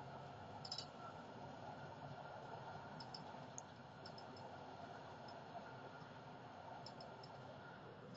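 Faint, steady running rumble of a Konstal 105Na tram heard from inside the driver's cab, with a few light clicks.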